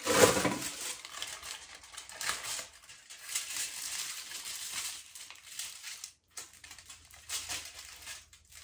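Aluminium highlighting foil and hair being handled: irregular soft crinkling and rustling, loudest right at the start.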